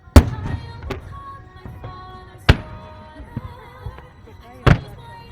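Firework shells bursting: three loud sharp bangs about two seconds apart, with a smaller pop after the first, over music from the show's soundtrack.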